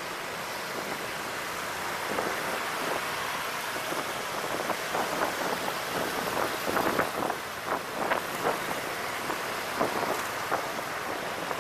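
Steady wind rushing over the microphone and road noise from a moving motorbike in city traffic, with short scattered sounds from the traffic in the second half.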